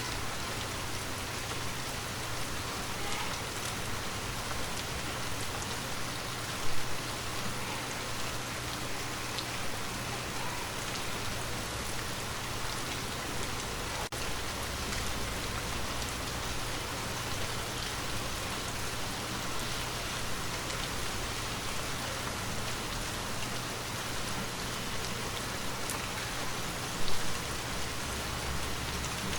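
Steady rain falling, an even hiss of drops on surfaces. Two brief, louder hits stand out, about seven seconds in and near the end.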